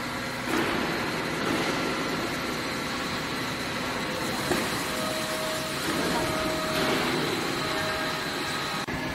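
Electric-motor-driven vacuum dispersing mixer running: a steady mechanical hum and whine with several fixed tones, and a higher tone that comes and goes in the second half.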